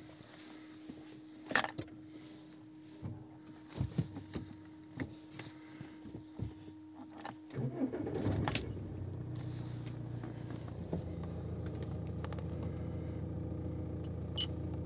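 Keys jangling and clicking at the ignition, then the Fiat Croma's 1.9 MultiJet four-cylinder turbodiesel cranks and starts about seven and a half seconds in, settling into a steady idle.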